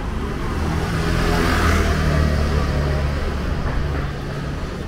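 A motor scooter riding past. Its small engine hums steadily, swelling to its loudest about two seconds in, then fading.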